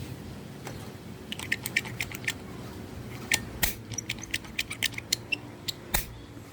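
An irregular run of quick, sharp clicks and taps, such as small tools or parts being handled, with a couple of heavier knocks in between and a louder knock near the end.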